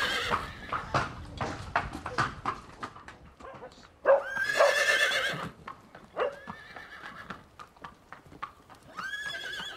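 Pony's hooves clip-clopping on a hard stable yard as it is led, with a horse whinnying loudly for over a second about four seconds in and again briefly near the end.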